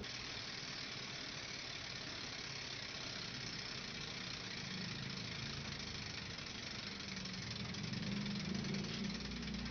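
Bicycle wheel spinning freely on a repair stand, its freewheel hub clicking in a fast, steady rattle.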